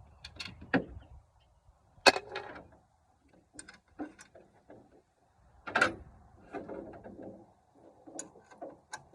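Hand tools working on metal under a pickup's hood while removing the alternator: a series of separate sharp metallic knocks and clinks with scattered smaller clicks, the loudest about two seconds in and again near six seconds.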